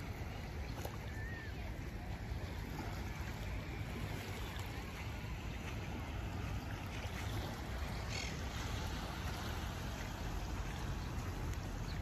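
Wind rumbling on the phone's microphone over small waves washing gently on a rocky shore.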